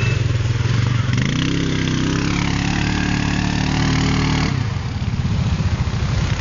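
Quad bike (ATV) engine running under load as it pulls through deep mud. It revs up about a second in, holds the higher note for a few seconds, and eases off about four and a half seconds in.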